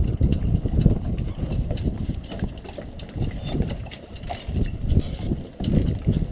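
Wind buffeting the microphone of a GoPro Hero 2 in an open skeleton housing on a moving bicycle: a loud, gusty low rumble that swells and fades every second or so, with light clicks and rattles over it.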